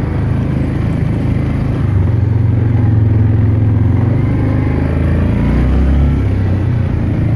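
A 2007 Yamaha Grizzly 400 ATV's single-cylinder four-stroke engine running while riding. Its note shifts about two seconds in and again around five seconds in.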